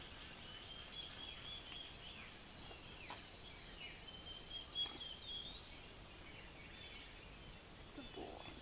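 Faint farmyard ambience: small birds chirping, some calls sliding down in pitch, over a steady high drone of insects. A faint knock comes about five seconds in.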